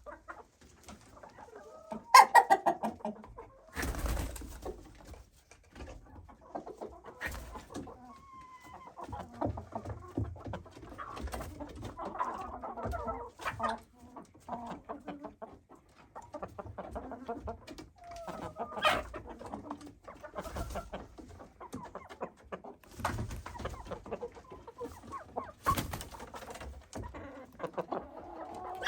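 Chickens clucking and calling on and off, with a louder call about two seconds in and scattered knocks and scuffs.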